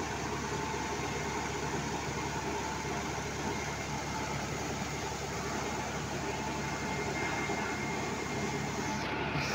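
Engine of a sand-piling rig running steadily, a continuous mechanical drone with a faint steady whine over it.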